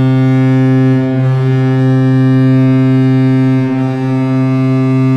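Hockey goal horn sounding one long, loud, steady low note, marking a goal.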